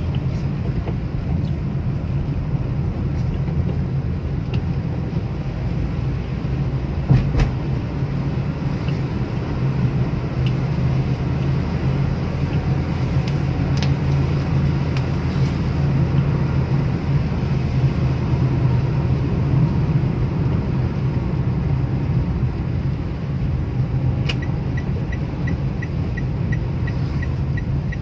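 Steady low hum of a car's engine and tyres on a wet road, heard from inside the cabin in heavy rain, with a few sharp taps and one knock about seven seconds in. A rapid, even ticking starts near the end.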